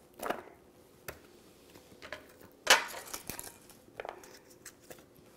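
Quartered onion pieces being set down in an aluminium roasting pan: a handful of short knocks and rustles, the loudest about two and a half seconds in.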